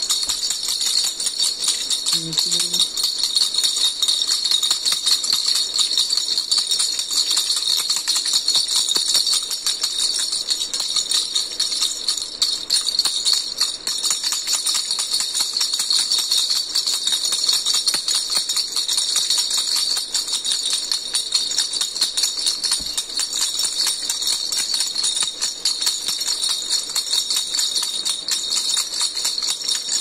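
Plastic baby rattle, a yellow-and-pink open-cage ball on a handle, shaken without pause, giving a fast, steady jingling.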